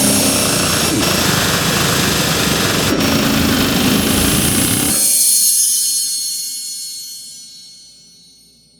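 Dark MIDI ringtone music: an extremely dense cluster of synthesized notes that blurs into a harsh, buzzing wall of sound. About five seconds in the low end cuts off, and a high ringing tail fades away over the last few seconds.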